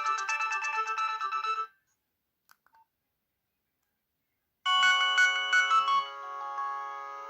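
Nokia 6030 mobile phone ringtones playing from its loudspeaker: a quick, many-note tune cuts off about a second and a half in, a pause of about three seconds follows with a couple of faint clicks, and then a different ringtone with long held notes starts.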